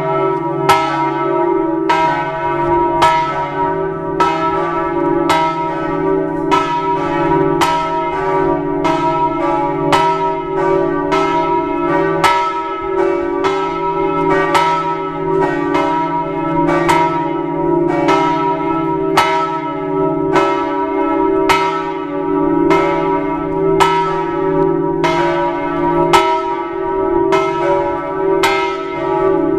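Church bells of St Mark's Campanile ringing, with steady strokes a little faster than one a second, each stroke ringing on over a continuous low hum from the bells.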